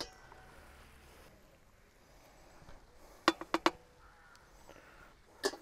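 Quiet with a few sharp metal clinks, four in quick succession about three seconds in and two more near the end, as the dome lid and a utensil are handled on a portable gas barbecue.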